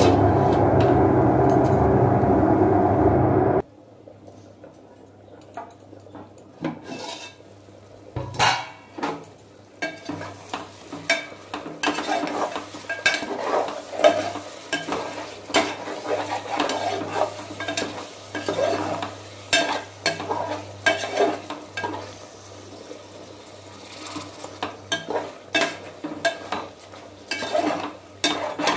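A loud, steady rushing noise that cuts off suddenly about three and a half seconds in. Then a metal slotted skimmer spoon stirs chicken curry in an aluminium pot, making repeated irregular scrapes and clinks against the pot's sides over a low steady hum.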